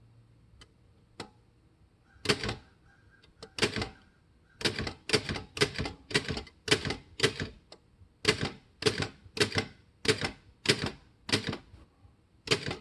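Keys of an Underwood Standard manual typewriter being struck one at a time, each a sharp clack of the typebar against the platen. A few faint clicks come first, then the strikes settle into a slow, even run of about two a second.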